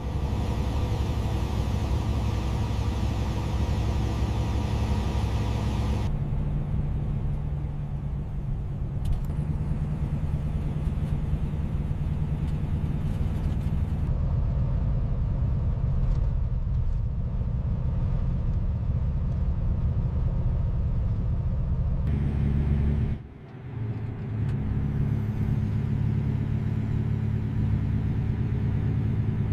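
Truck engine and road noise: a steady low rumble with an engine hum. It changes character abruptly a few times, with a short dip in level about three quarters of the way through.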